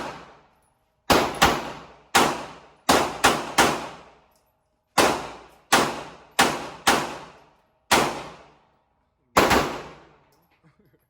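Gunshots at a shooting range: about a dozen rounds fired in quick, uneven succession, in pairs and threes with short pauses, each crack followed by a short fading ring.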